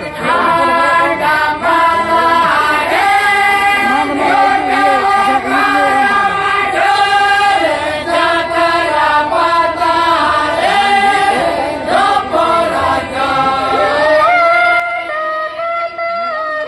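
A group of voices singing a Santali song together in long held notes that bend from one pitch to the next.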